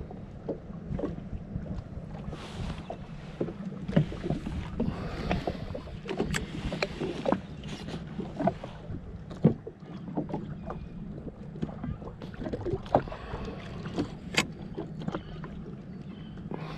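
Jet ski afloat: water slapping and knocking against the hull, with scattered sharp clicks and knocks, over a steady low hum.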